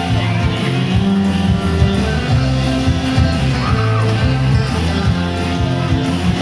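Live rock band playing loud through a concert PA, with electric guitars.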